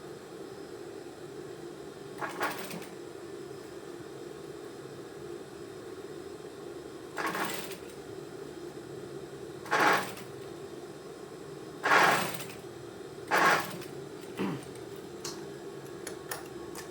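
Sewing machine work on a blazer sleeve: a steady low hum throughout, with five short noisy bursts of running or cloth handling about two to five seconds apart.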